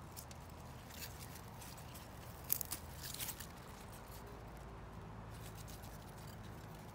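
Salad leaves rustling and snapping as they are picked by hand, in scattered short crackles, the sharpest about two and a half seconds in.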